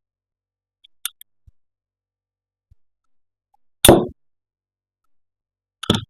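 Plastic toy pieces being handled and set down: a light click about a second in, a loud short knock a little past the middle, and another knock near the end.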